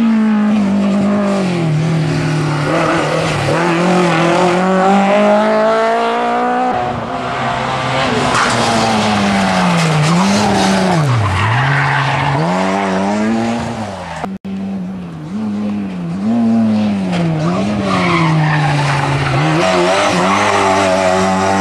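Lada 2107 rally cars' four-cylinder engines revving hard at full throttle, the pitch climbing and then falling sharply again and again as the drivers shift gears and lift for corners. Tyre skid noise comes through the corners.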